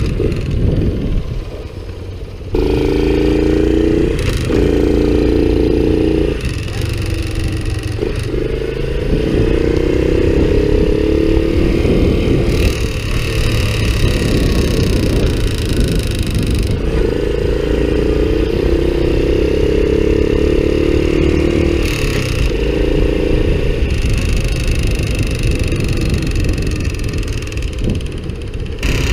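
Honda Cub's single-cylinder four-stroke engine running, its pitch rising and falling several times, with an abnormal noise that has grown louder over time; the owner thinks the cam chain needs checking.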